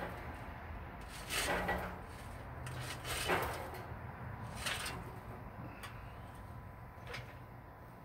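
Lit charcoal briquettes tipped out of a metal chimney starter, clattering onto the steel firebox grate of an offset smoker in three main pours, then a few lighter knocks.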